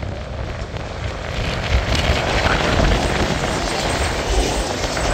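Two Hectorrail class 251 diesel locomotives coupled together, running light without a train and passing close by, their engines droning and growing louder as they come past about halfway in.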